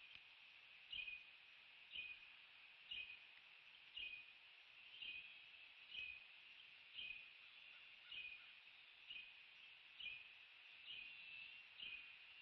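Faint, high-pitched animal call repeated evenly about once a second.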